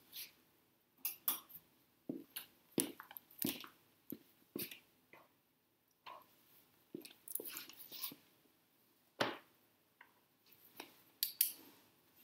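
Scattered small clicks, taps and rustles of a person moving about a room, switching off lamps and handling things, with one sharper knock about nine seconds in.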